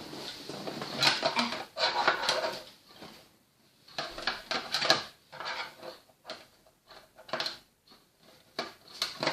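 Plastic toy playset pieces being handled, clicking and clattering against each other in irregular bunches.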